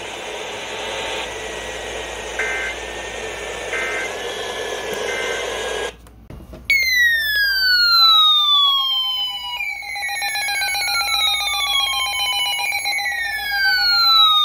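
Hissy, static-laden radio reception with a faint steady tone and three short beeping bursts. After a brief gap, an emergency alert tone starts: falling electronic sweeps that repeat about every three seconds over a steady lower tone.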